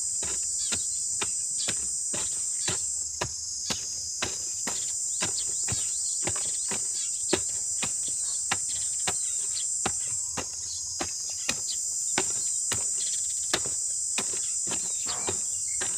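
Steel garden hoe chopping into loose soil and dried cow manure at the bottom of a planting hole, mixing them, in short strikes about twice a second. A steady high-pitched insect chirring carries on behind.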